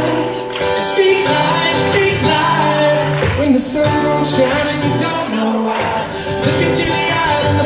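Live acoustic guitar strummed with singing, amplified over a concert hall's sound system.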